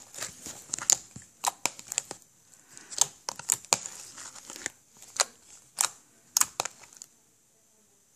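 Slime being squished, stretched and folded by hand in a plastic tub, giving off irregular sticky clicks and pops. The clicking stops about seven seconds in.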